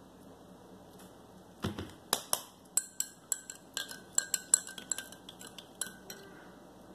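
A spoon stirring coffee in a ceramic mug, clinking against the sides about four times a second for around four seconds. A dull knock comes just before the stirring starts.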